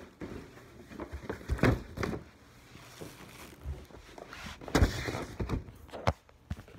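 Handling noise: irregular knocks, thumps and rubbing in two clusters, with a couple of sharp clicks near the end, as of a phone being moved about with its lens covered.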